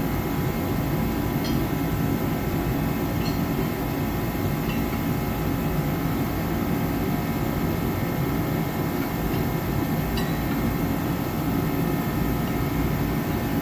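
Garage heater running with a steady, even drone, with a few faint metal clinks as large wrenches are set into a tool drawer.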